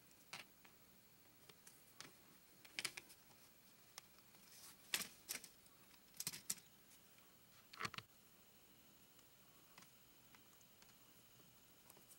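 LEGO plastic pieces clicking and clattering as hands fit parts onto a built model and move it on a baseplate: a scatter of short, sharp clicks in the first eight seconds, then near quiet with only a few faint ticks.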